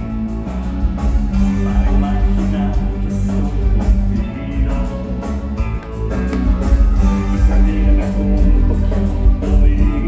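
Rock music with electric guitar and a heavy bass line, played back in the room through floor-standing loudspeakers driven by an Onkyo TX-NR838 AV receiver.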